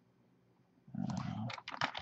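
Computer keyboard keys clicking as someone types, in a quick run that starts about a second and a half in, just after a brief low rumbling sound.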